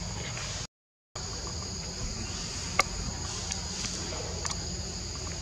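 Steady high-pitched insect chorus, a continuous buzz in two bands, over a low rumble. It cuts out for half a second about a second in, and there is one sharp click near the middle.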